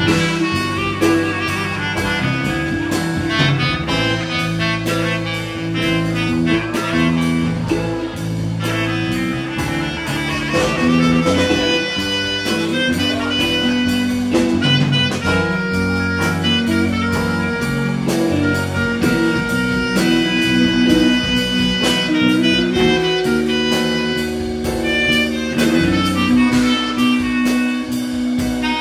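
Large jazz-rock ensemble playing live: saxophones and other horns and woodwinds carry sustained melodic lines over guitars, bass and strings, with a steady drum beat.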